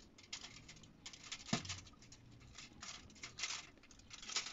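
Faint scattered taps and rustles of puff pastry being handled and laid over a foil-lined pie dish, with one sharper tap about one and a half seconds in.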